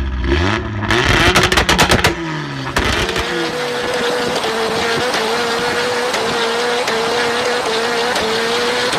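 Car engine revving up and down with a burst of sharp crackles, then holding a steady, slightly wavering high drone.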